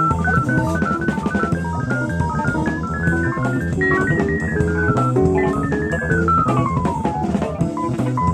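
Live jazz-fusion band playing, taped off FM radio onto cassette: drum kit and bass under a fast lead line of single notes. The line runs down in pitch over the last few seconds.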